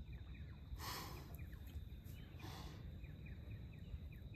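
Faint bush ambience: small repeated bird chirps over a steady high insect-like tone and a low outdoor rumble, with two soft breaths close to the microphone, about a second in and again a second and a half later.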